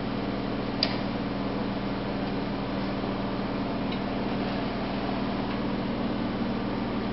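A sharp metal click about a second in as the Bohemia woodburning stove's primary air slider is pushed across, and a fainter tick about four seconds in as the secondary air slider on top is moved, over a steady low hum.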